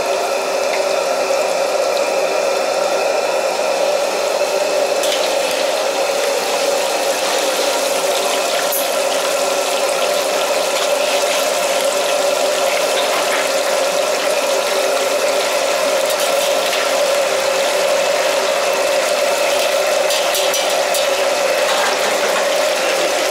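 Food deep-frying in a wok of hot oil, a steady loud sizzle and bubbling over a constant mechanical hum from the stove, with a few light clinks of a metal ladle and strainer in the wok.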